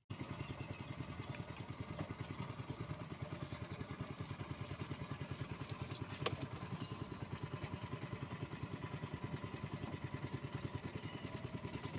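Small engine running steadily with a fast, even putter. There is a single sharp click about six seconds in.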